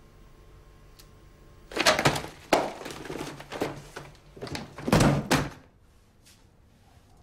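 A run of loud knocks and thuds, clattering for about four seconds and then stopping.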